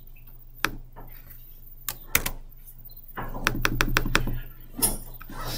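Clicks of a computer mouse and keyboard: a few single clicks in the first two seconds, then a quick run of about half a dozen clicks around the middle, over a steady low hum.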